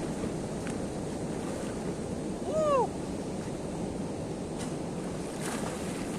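Sea waves and surf with wind buffeting the microphone, a steady wash. About two and a half seconds in, a single short call from a bird rises and falls over it.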